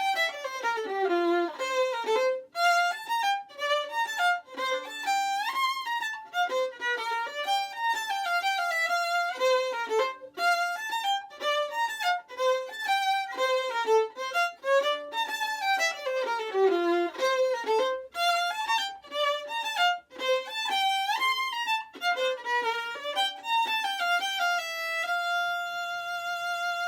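Solo fiddle playing a Strathspey in F major, a single melody line of short notes with occasional slides, finishing on one long held note near the end.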